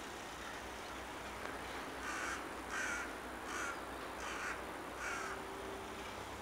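A crow cawing five times in a row, about two seconds in, in an evenly spaced series.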